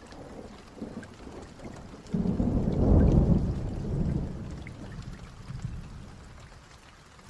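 A rumble of thunder that starts suddenly about two seconds in, is loudest a second later and fades slowly, over light rain.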